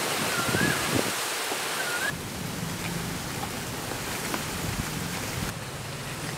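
Steady outdoor wind hiss on the microphone, with a few faint knife taps on a plastic cutting board as onion and green capsicum are sliced. A brief warbling whistle comes twice in the first two seconds.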